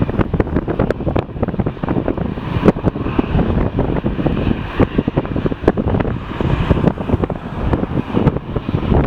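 Strong wind buffeting the microphone: a loud, gusty rumble with frequent pops as gusts hit it.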